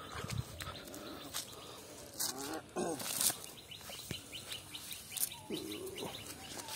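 Outdoor bird calls, with short calls about halfway through and again near the end, over scattered rustles and clicks from a wet cast net full of fish being dragged and laid on grass.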